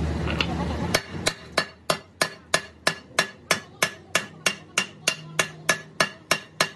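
Chipping hammer knocking slag off a fresh weld bead on a Toyota pickup's steel rear axle housing tube: a steady run of sharp, ringing metal strikes, about three a second. The strikes start about a second in, after a hiss that dies away.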